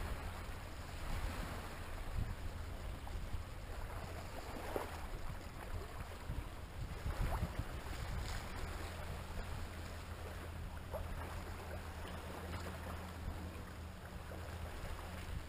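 Small choppy waves lapping and splashing against seaweed-covered shore rocks, with a steady low rumble of wind on the microphone.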